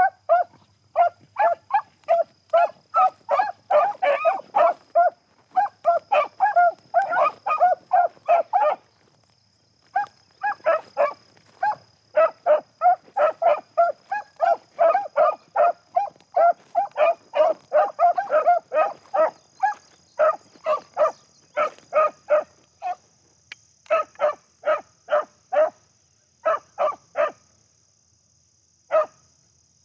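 Beagle hound giving tongue while running a rabbit's track: quick, repeated barks at about three a second. The barking breaks off about nine seconds in, resumes, then thins to scattered barks near the end.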